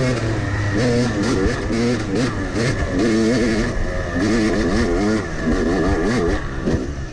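Yamaha YZ250X's 250 cc two-stroke dirt bike engine under way, its pitch rising and falling again and again as the throttle is opened and rolled off.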